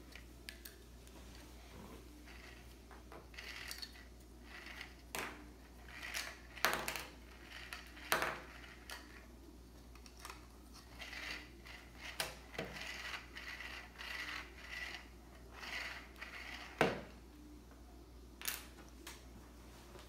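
3D-printed plastic dual-spool string-climbing rocket toy being worked by hand on its string: a run of short whirring bursts from the spools, about one a second, with a few sharp plastic clicks and knocks, the loudest near the end.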